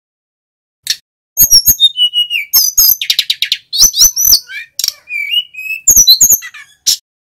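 Male mountain flycatcher (sikatan gunung) singing a loud, varied phrase that starts about a second in: quick whistled notes, rapid trills and sliding notes, ending shortly before the end.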